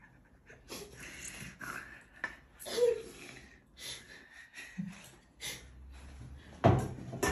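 Wooden spatula scraping and tapping stir-fried vegetables off a metal pan, a scatter of short scrapes and clicks, with soft laughing breaths. Two louder knocks near the end.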